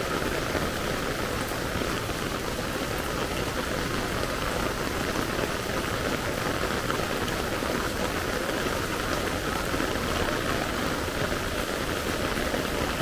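Heavy rain falling steadily on a paved street, a constant even hiss of rain with no breaks.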